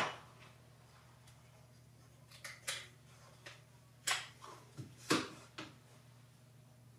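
Scattered light clicks and knocks of small objects being handled and set down on a wooden workbench, about eight in all, in the middle of the stretch. A faint steady low hum runs underneath.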